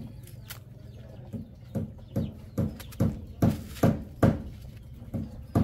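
Even knocks from food being prepared by hand, about two to three a second, starting about a second and a half in after a low steady hum.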